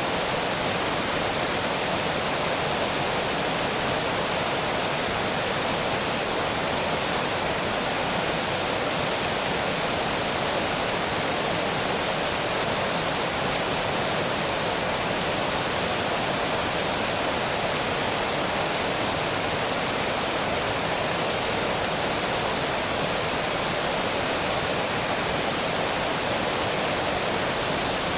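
Water pouring over a small dam, a steady, even rush of falling water with no change in level.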